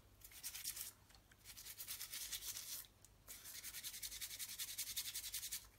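A toothbrush scrubbing a wood-mounted rubber stamp to loosen surface dirt and dust, in quick back-and-forth strokes. The scrubbing comes in three spells with two brief pauses.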